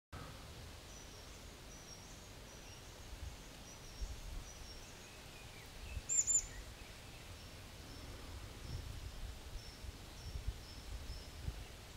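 Small songbirds calling faintly: thin, high, short notes repeated about twice a second, with a louder, sharp double call about six seconds in, over a faint low rumble.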